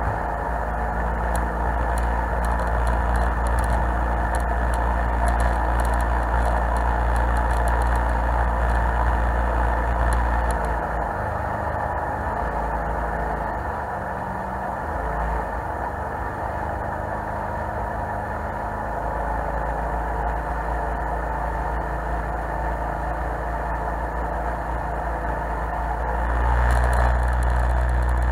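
Jet boat's engine running under way at a steady cruise, with water and hull noise, heard aboard the boat. The deep rumble eases off about a third of the way in and builds up again near the end.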